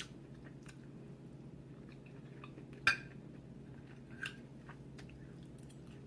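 Quiet close-up chewing of collard greens and black-eyed peas, with small mouth clicks, one sharp click about three seconds in and a softer one a second later.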